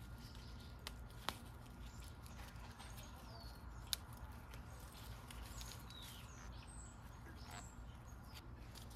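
Birds chirping faintly now and then, with a couple of sharp snaps as daylily flower stems are broken off by hand; the louder snap comes about four seconds in.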